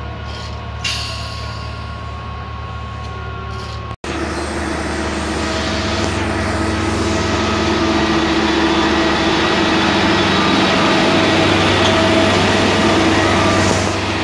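Plasser & Theurer Unimat Compact tamping machine's diesel engine running with a steady hum. It cuts out briefly about four seconds in, then comes back louder and builds as the machine rolls slowly past on the rails.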